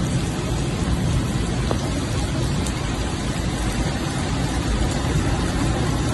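A car driving through a flooded street: its engine and tyres ploughing through standing water, heard as a steady low rushing noise.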